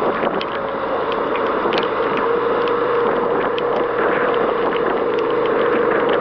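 Suzuki SV650 V-twin motorcycle under way on a wet road in the rain: steady engine and drivetrain noise with a steady whine, a hiss of tyre spray, and scattered sharp ticks.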